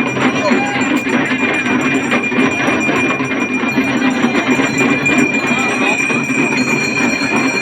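Damru hand drums rattling fast and without a break, many together in a dense din, with a jingling metallic sound mixed in.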